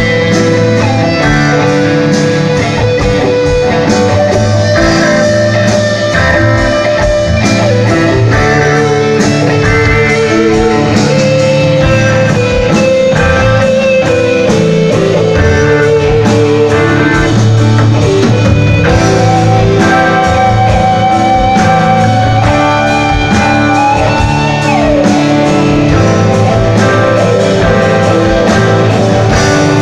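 Live rock band playing loud: electric guitars, bass, drums and keyboards, with a long held, wavering lead melody line over the top.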